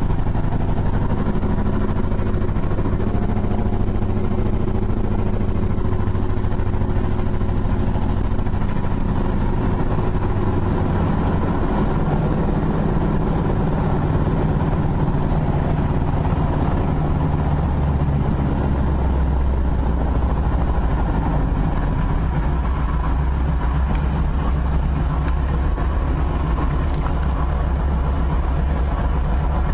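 Engine and propeller of a T-6 Texan, a nine-cylinder Pratt & Whitney R-1340 radial, running steadily in flight and heard from inside the cockpit. The engine note drops lower about halfway through and stays there.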